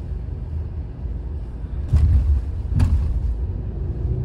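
Car tyres thumping over the rails of a railroad crossing, two sharp jolts a little under a second apart, over a steady low road rumble heard from inside the cabin.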